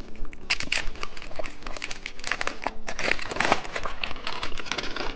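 Plastic candy packaging crinkling and crackling as it is handled and opened, in quick irregular bursts.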